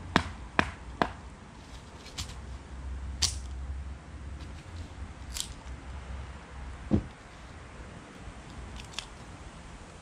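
Sharp metallic knocks of a knife being struck through the top of an aluminium can to punch vent holes, about two a second, stopping about a second in. Light scattered clicks follow, then one duller thud about seven seconds in.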